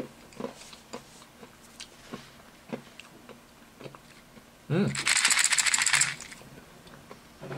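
A few faint clicks, then past the middle about a second and a half of loud rattling as pressed sour candies shift and knock about inside a small metal tin.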